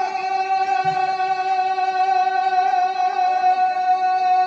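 Male naat reciter's voice holding one long sung note at a steady pitch with a slight waver, through a microphone.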